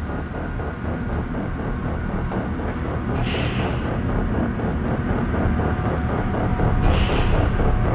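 Freight elevator machinery running with a low rumble and a fast, even mechanical clatter that grows slowly louder. A sharp double hiss comes about three seconds in and again near the end.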